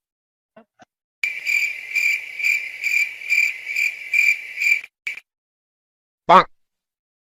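Cricket chirping sound effect, the comic 'awkward silence' cue: a high, pulsing chirp repeating about twice a second for nearly four seconds, then cutting off. A short buzzy blip follows about a second later.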